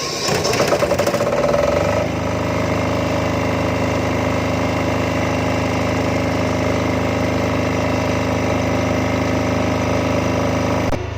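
Supra XTD7700 silent-type diesel generator starting up: uneven and pulsing for about two seconds, then settling into a steady run.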